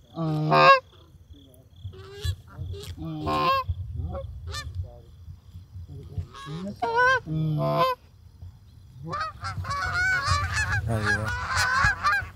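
Canada geese honking: a few loud, separate honks in the first seconds, then from about nine seconds in a growing chorus of many overlapping honks as a flock comes in.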